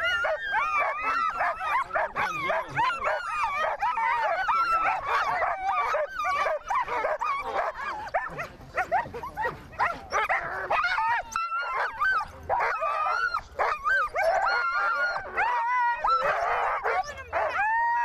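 Many sled dogs barking together in a dense, unbroken chorus, with overlapping rising and falling high calls throughout.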